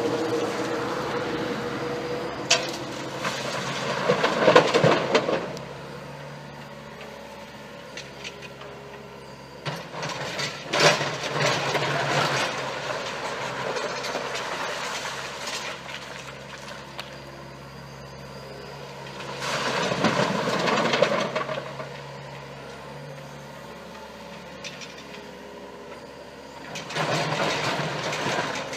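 Excavator's diesel engine running steadily, rising four times into louder, rougher bursts as if working the hydraulics under load.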